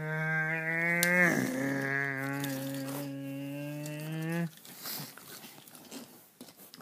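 A long, low two-tone vehicle horn blast, held for about four and a half seconds, with a brief dip in pitch about a second in, then stopping.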